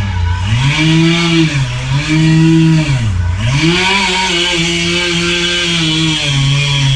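Two-stroke chainsaw running at high throttle through a cut, its engine speed dropping and recovering several times under load, with a deep dip about three seconds in before it holds steady and falls back again near the end.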